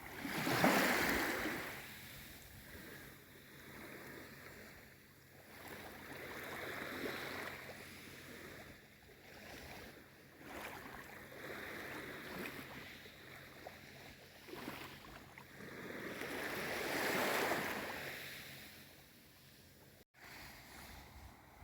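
Calm sea with small waves washing in and drawing back, each wave a soft swell of water noise; two larger waves break, one about a second in and one near the end, with gentler lapping between.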